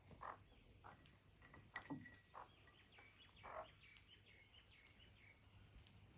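Faint bird calls: a few short, soft calls in the first couple of seconds and thin, high chirps through the middle.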